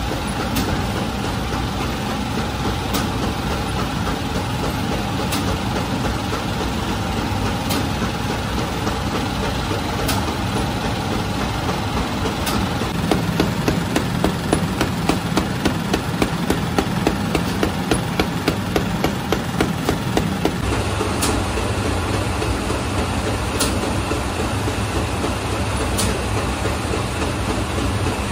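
Steady mechanical drone of bakery machinery. From about halfway in, a rapid rhythmic clatter of about three knocks a second joins it and stops after about eight seconds.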